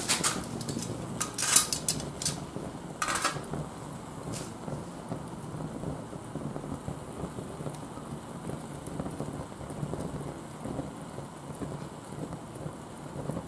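Oga-binchotan charcoal burning in a charcoal starter over an alcohol stove. Several sharp pops and cracks in the first four seconds or so, the charcoal bursting as it heats, then a steady low rush of the fire.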